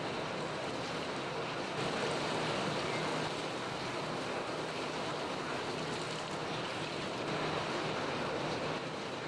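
Kitchen tap running into a stainless steel sink, the water splashing over hands and a plastic lid being rinsed under it. It is a steady rush that swells a little about two seconds in and again around seven seconds in.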